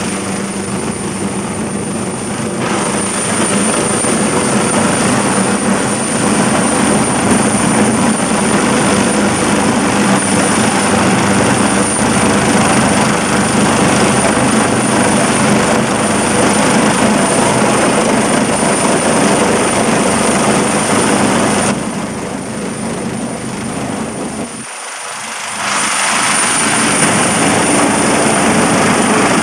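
Rescue helicopter hovering close by during a winch operation: steady, loud rotor and turbine noise with a high whine over it. It dips briefly about three-quarters of the way through, then comes back at full strength.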